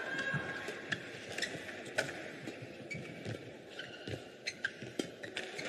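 Badminton rally: several sharp clicks of rackets striking the shuttlecock, with brief squeaks of court shoes on the mat.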